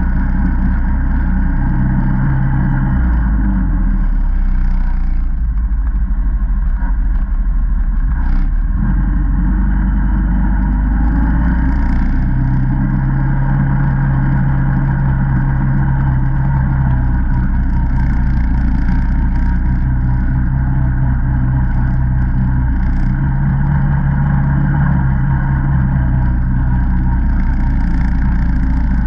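Single-cylinder ATV engine running at low trail speed. The engine note steps up and settles back several times as the throttle is worked, each rise held for a few seconds.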